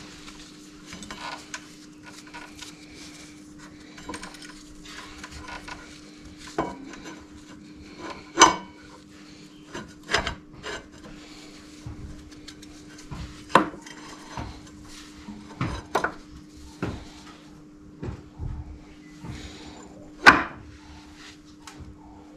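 Irregular metal clicks, clinks and knocks of brake pads, caliper parts and tools being handled while front brake pads are fitted on a motorcycle, with three sharper, louder knocks spread through. A steady hum runs underneath.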